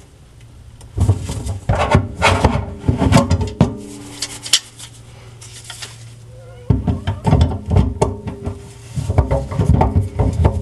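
Hands working on the parts of a kitchen sink strainer drain: irregular rubbing and scraping with light knocks. There is a lull of a couple of seconds about four seconds in, then the handling starts again.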